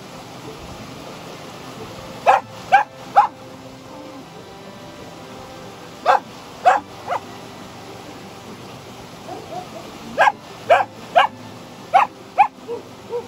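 Young dog barking at a sea snake, in four quick bursts of two or three short, sharp barks a few seconds apart, with a couple of softer yips near the end.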